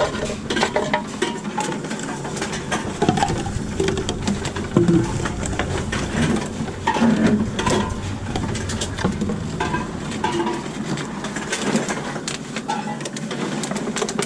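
Cans and bottles clattering at a container-deposit reverse vending machine, with many short knocks and clinks.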